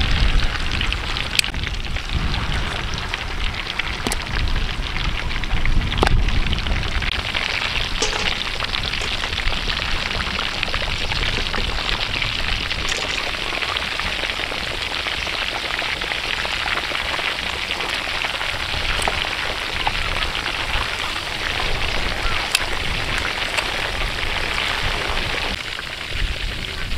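Pork ribs deep-frying in a large pan of hot oil, giving a steady crackling sizzle with scattered sharp pops. A low rumble sits under it for the first few seconds.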